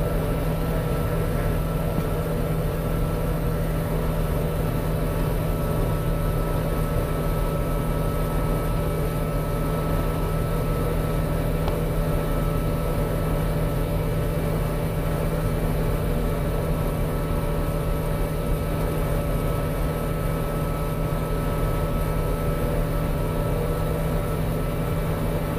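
Kubota M6040 tractor's four-cylinder diesel engine running at a steady speed. It makes an even drone with a thin steady high tone over it.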